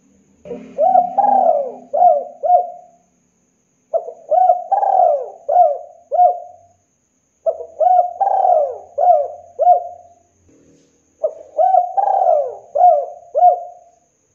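Spotted dove cooing: four phrases a few seconds apart, each a run of about five short, arched coos.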